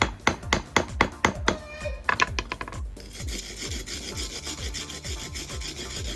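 Old mortar being knocked and scraped off a reclaimed brick. Quick taps, about four a second, for the first two seconds, then steady scraping from about three seconds in.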